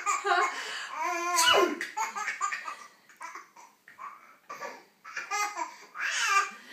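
A woman's fake sneeze, a rising 'ah-' ending in a sharp, loud 'choo' about a second and a half in, followed by a baby's hysterical laughter in short bursts.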